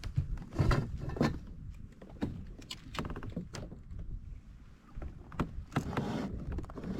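Irregular knocks and clicks of handling in a kayak, with gear or the catch bumping against the hull, over a low rumble.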